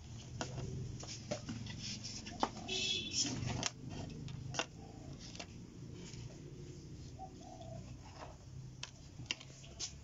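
Scattered small clicks and taps of multimeter test leads and alligator-clip leads being handled on a workbench, over a steady low hum.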